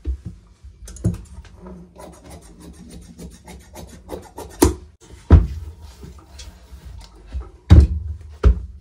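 Large tailor's scissors snipping through blouse fabric on a cutting table, a run of short sharp clicks, with a few louder knocks on the table in the second half.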